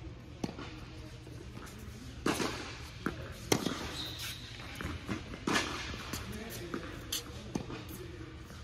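Tennis balls being struck by racquets and bouncing on an indoor hard court: a handful of sharp pops, the loudest about three and a half seconds in.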